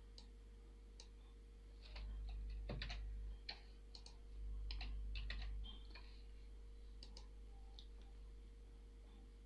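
Faint, irregular clicking and tapping of a computer keyboard and mouse over a steady low electrical hum, with two low rumbles, each about a second long, near the middle.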